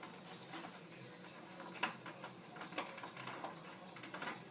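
Faint, scattered small clicks and ticks of a nut being turned down on a bolt through a plastic helmet ear, with light handling of the hardware.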